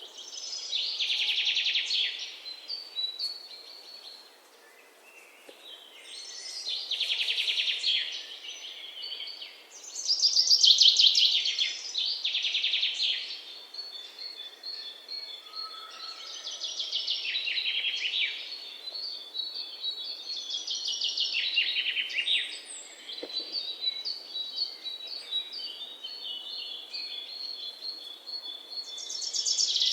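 Songbirds singing: loud trilled phrases every few seconds, with a thin run of high chirps between them.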